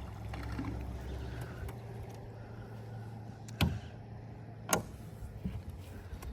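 Electric trolling motor humming steadily as the jon boat moves off. Two sharp knocks, about a second apart, come midway through.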